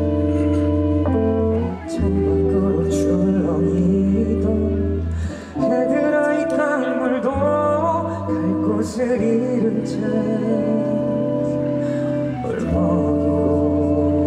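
A slow, gentle song performed live: held chords that change every couple of seconds over a steady bass, with a singing voice.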